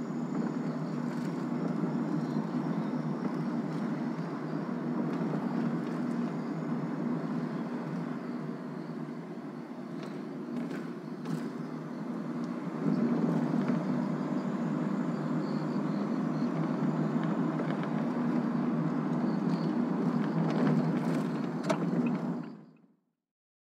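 Car driving slowly, heard from inside the cabin: steady engine and tyre noise on a road coated in dried mud and silt, growing louder about halfway through, with a few sharp ticks around the middle and near the end. The sound fades out near the end.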